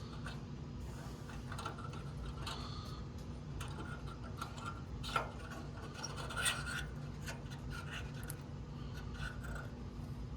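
Hands scraping and rubbing at small parts, with scattered light clicks and one sharper tick about five seconds in, over a steady low hum.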